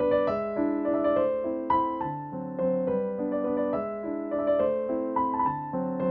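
Background piano music: a steady run of single notes and chords.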